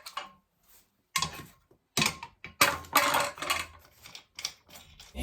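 Irregular clicks and metallic rattling of office-chair hardware being handled, the tilt mechanism and its screws being fitted, with a longer clatter in the middle.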